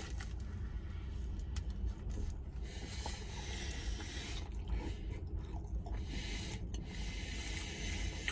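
Someone chewing a mouthful of pastry bake close to the microphone: soft, irregular crunching and mouth noises over a steady low hiss.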